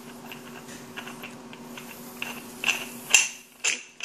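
Brass valve head being screwed by hand onto a SodaStream CO2 cylinder packed with dry ice, with small clicks and scrapes from the threads. In about the last second come three short, sharp spurts of gas as the sublimating dry ice starts to pressurize the cylinder.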